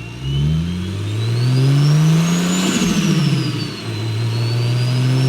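BMW N54 inline-six with a big single turbo accelerating hard: engine note and a high turbo whistle rise together, then about three seconds in the revs drop at a gear change with a brief turbo flutter, and the engine and whistle climb again in the next gear.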